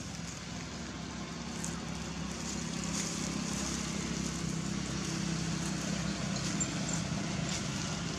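Steady low hum of an engine running, growing a little louder toward the later part.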